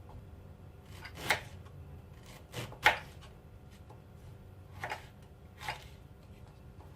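A knife cutting fresh ginger root on a cutting board: about six separate cuts, irregularly spaced, the loudest about three seconds in.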